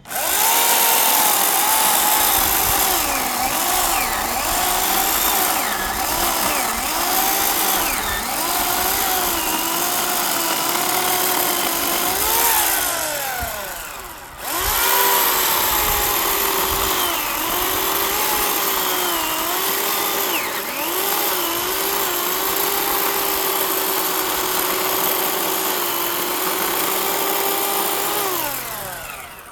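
Electric chainsaw cutting through a tree trunk log, its motor whine dipping in pitch again and again as the chain bogs down in the wood. It is let off and winds down about halfway through, starts again a second later, then winds down again near the end.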